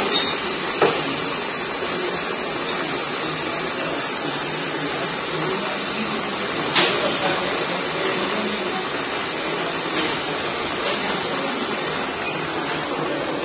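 Machine-shop drill spindle running and cutting a hole in a steel 1-2-3 block held in a vise: a steady machine noise with a few sharp metallic clicks, one loudest about seven seconds in.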